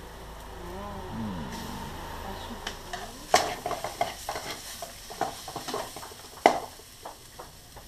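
Chicken pieces frying in the spiced onion-tomato masala in a metal kadai, sizzling while a utensil stirs and scrapes, clinking against the pan. Two louder knocks of the utensil on the pan about three and six and a half seconds in.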